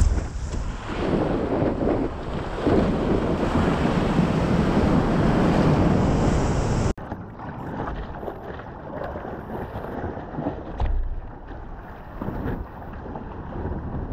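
Surf water rushing and wind buffeting a board-mounted action camera's microphone as a stand-up paddleboard rides a wave. About seven seconds in the sound cuts abruptly to a quieter wash of water with occasional surges.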